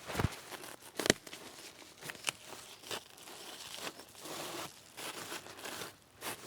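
Rustling and crackling of leaves and sticks being handled in forest undergrowth. Two sharp cracks come about a quarter second and a second in.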